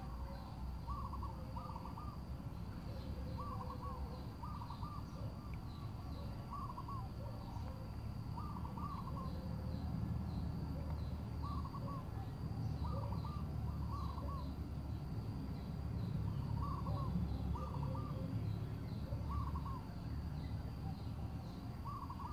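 A bird calling over and over: short notes in groups of two or three, repeated every couple of seconds, over a low steady rumble.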